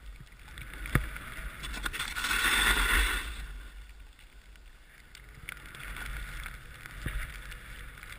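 Snowboard sliding through powder snow: a hissing rush of snow that swells about two seconds in and lasts about a second, then settles to a softer hiss. A single sharp knock about a second in.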